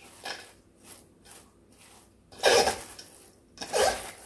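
Shredded cabbage, red cabbage and carrot being tossed by gloved hands in a stainless steel bowl: rustling swishes, a few soft ones and then two louder ones in the second half.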